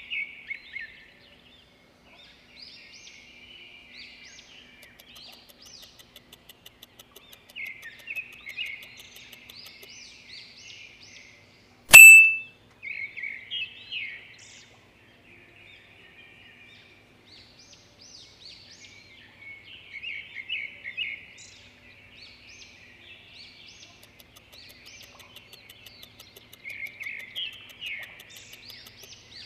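Birds chirping and singing in repeated trilling phrases, with one loud, bright ding that rings briefly about twelve seconds in.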